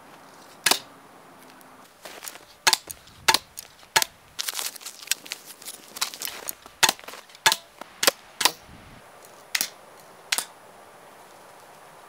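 Archery with a wooden bow: a string of sharp snaps and knocks, over a dozen in all, from bowstring releases and arrows striking the target, with a dense run of them about halfway.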